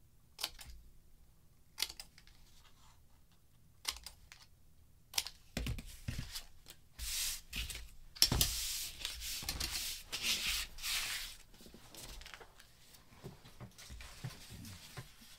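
Scissors snipping through card stock in a few separate sharp snips, then card and paper sliding and rustling on a tabletop as the pieces are handled, with a thump about eight seconds in.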